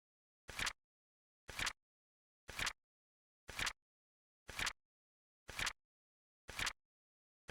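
Flip clock sound effect: a short flip-click repeating evenly once a second, with silence between.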